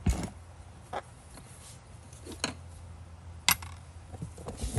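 A few short, light clicks and taps as a small spirit level is set down and handled on a metal gearbox housing, the sharpest about three and a half seconds in, over a low steady hum.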